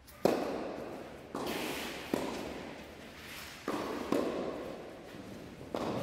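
Tennis balls struck by rackets and bouncing on the court during a doubles serve and rally: six sharp pops, the first (the serve) about a quarter-second in. Each pop echoes in the large indoor tennis hall.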